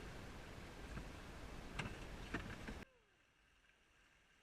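Water and wind noise on a kayaker's action camera, with a couple of sharp knocks, cut off suddenly about three seconds in, leaving near silence.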